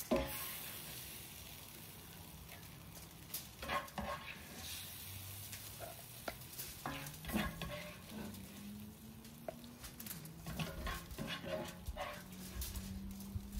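Hot sautéed vegetables spooned from a frying pan onto a whole raw snapper: a sharp knock and a short fading sizzle at the start, then scattered taps and scrapes of the spoon against the pan. A low hum that wavers in pitch comes in about halfway.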